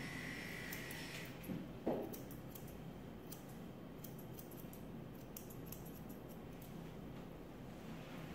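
Grooming scissors snipping a Bichon Frise's muzzle hair: many faint, quick metallic snips. A faint steady high hum stops about a second in, and there is one short soft thump about two seconds in.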